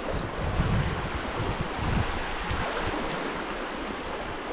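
Shallow stream rushing over rocks and fallen branches in a steady, even rush, with irregular low rumbles of wind on the microphone.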